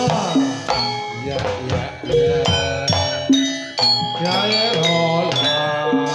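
Javanese gamelan music for a jathilan dance: struck metallophone notes ringing over sharp drum strokes. Near the end the notes give way to a held, steady chord.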